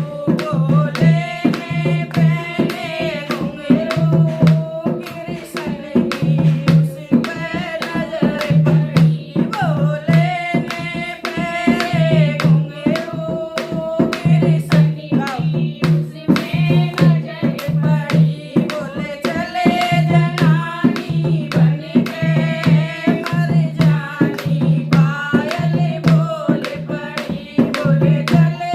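Devotional song (bhajan): a voice singing a wavering melody over a steady hand-drum beat, with sharp percussion strokes keeping time.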